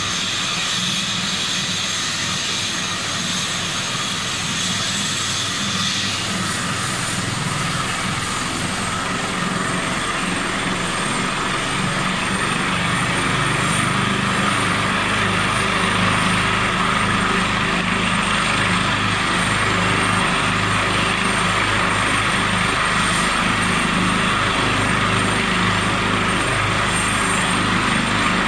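Airbus H145 rescue helicopter running on the ground ahead of take-off: a steady high turbine whine over the low beat of the main rotor, growing louder about halfway through as power comes up.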